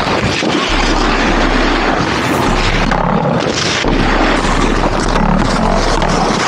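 Wind rushing and buffeting over the microphone of a camera carried by a snowboarder in motion, with a low rumble that drops out briefly a few times, mixed with the scrape of snowboards sliding over packed snow.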